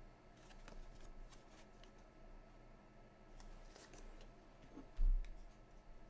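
Faint handling sounds: light rustles and small clicks, with one dull thump about five seconds in.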